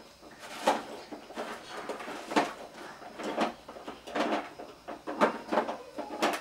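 Irregular knocks and clatters of hard plastic toys being handled, roughly one a second, some in quick pairs.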